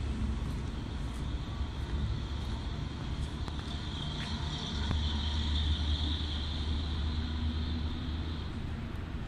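Steady low engine rumble that grows louder about halfway through, with a thin high hiss over the middle of it.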